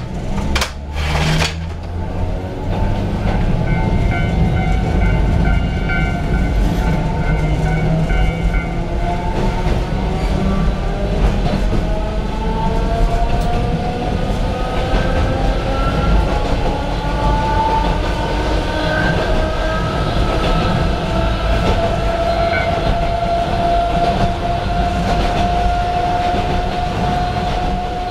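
Kintetsu Utsube Line train's nose-suspended (tsurikake) traction motors whining over a low running rumble, the whine climbing steadily in pitch through the second half as the train gathers speed. A few sharp knocks come in the first two seconds.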